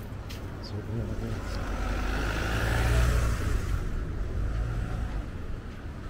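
A motor vehicle passing on the road alongside, growing louder to a peak about halfway and fading again over a steady low rumble.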